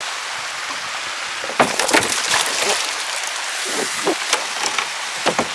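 Water spraying and splashing down onto a reservoir's surface: a steady, rain-like hiss with a run of sharper splashes from about a second and a half in until near the end.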